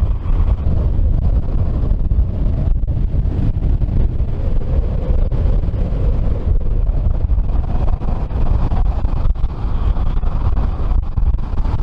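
Strong wind buffeting the camera microphone as a loud, steady low rumble with gusty flickers.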